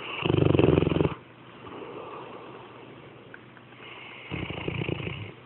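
A sleeping pet snoring loudly: two rattling snores about four seconds apart, each lasting roughly a second, with the first the louder.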